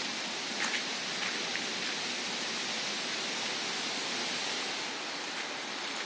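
A steady rushing hiss of outdoor noise, with a few faint ticks. It gets brighter about four and a half seconds in.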